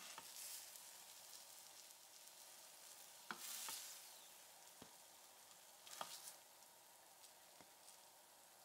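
Faint sizzling of sweet potato rounds frying in a bubbling caramelized sugar glaze, with a metal fork clicking against the pan three times as slices are lifted out.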